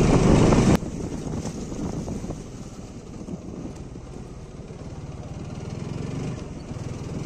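Motorcycle engine running steadily at low road speed, heard from the rider's seat. A louder passage cuts off abruptly under a second in.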